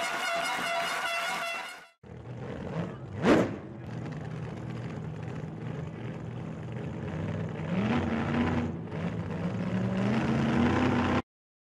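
Music for about two seconds, then a tractor engine running as it pulls a loaded trailer, its pitch rising twice as it speeds up. Shortly after the engine comes in, a brief shrill toot is the loudest sound.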